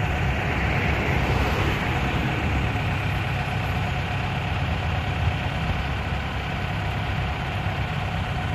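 Heavy diesel engines of a wheeled excavator and a dump truck idling steadily, a continuous low engine sound with no knocks or scraping.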